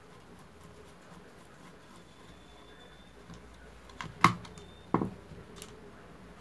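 Screwdriver driving the screws that hold the small motor in an electric citrus juicer's plastic housing: faint ticks and scraping, then two sharp knocks less than a second apart about two-thirds of the way in, the first louder.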